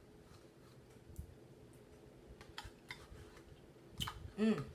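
Faint, scattered clicks and taps of eating from a plastic snack cup, with a short hum of voice near the end.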